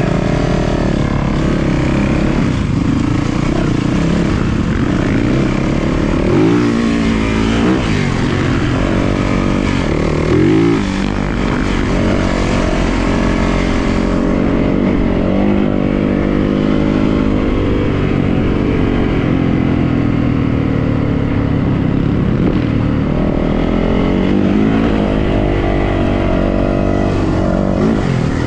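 450cc four-stroke single-cylinder dirt bike engine running while riding, its pitch rising and falling with the throttle, with quick revs about six and ten seconds in.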